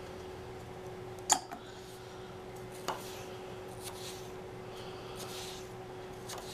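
Knife cutting raw potato slabs into fries on a wooden cutting board: a sharp knock of the blade on the board about a second in, a lighter one near three seconds, and soft slicing and scraping sounds later. A faint steady hum runs underneath.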